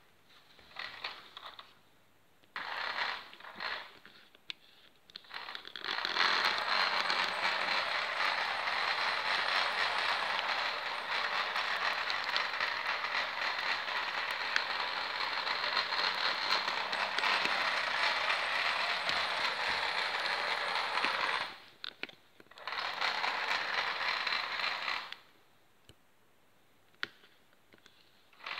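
Small electric motor and gears of a battery-operated toy Wartburg 311 convertible on a wired remote, whirring. It runs in a few short bursts, then steadily for about fifteen seconds, stops, and runs again for a few seconds.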